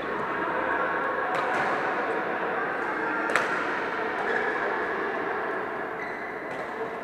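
Badminton rackets striking shuttlecocks in a large sports hall: a few sharp hits, the loudest about three and a half seconds in, over a steady hubbub of the hall.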